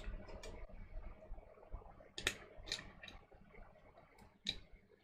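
Small sharp clicks of Glock 23 pistol parts being handled and fitted during reassembly: a handful of separate clicks, the clearest two about two and a half seconds in and one near the end.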